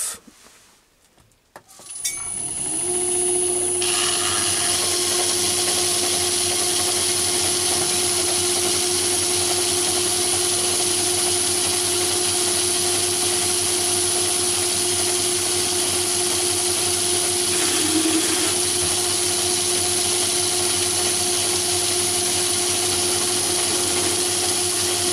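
Metal-turning lathe starting up about two seconds in, then running steadily with a constant whine while a vertical shear tool takes a light finishing cut of a thou or two off a mild-steel bar.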